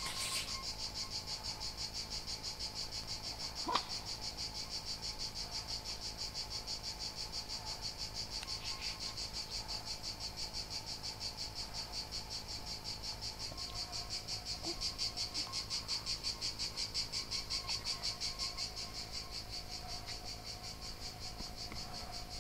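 Insects chirping steadily outdoors, a high, evenly pulsing trill repeating several times a second throughout. A single short click sounds about four seconds in.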